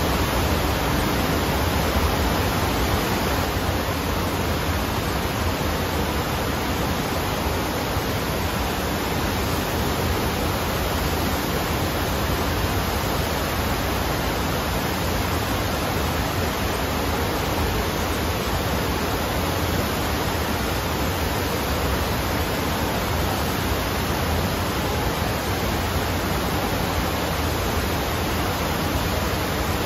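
Water rushing steadily up the ramp of an indoor surf simulator's artificial standing wave, an even, unbroken rush of flowing water and spray.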